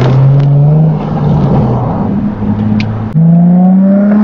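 Nissan 350Z's 3.5-litre V6 through a 3-inch straight-pipe catback with PowerFlow twin backboxes, heard from the open-top cabin while accelerating. The engine note climbs, falls and quietens about a second in, then jumps up louder just after three seconds and climbs again under throttle.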